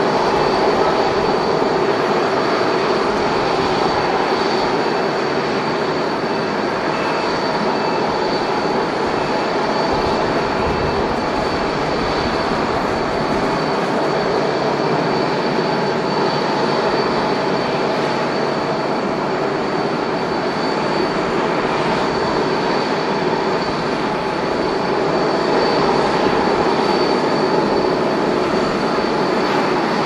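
Air Canada jet airliner's engines running at taxi power as it rolls past: a steady, loud rushing noise with a high whine over it.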